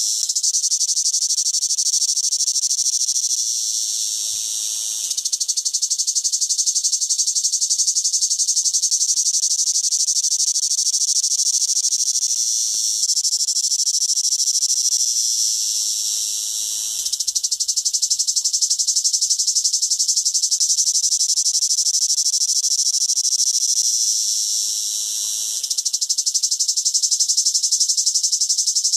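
Cicada singing: a loud, continuous high buzz made of very rapid pulses. It sags three times, about 4, 16 and 25 seconds in, then comes back to full strength.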